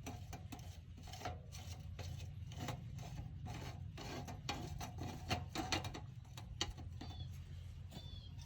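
Irregular rubbing, scraping and light clicks of objects being handled, over a steady low hum.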